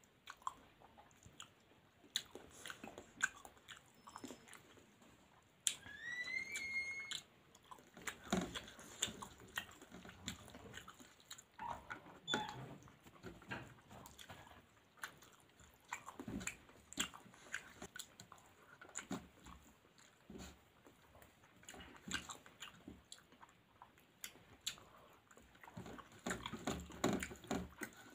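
Close-up chewing and mouth smacks of someone eating rice and curry by hand, with the fingers working the rice on a steel plate: irregular short wet clicks and smacks throughout. About six seconds in, a short rising tone sounds for about a second.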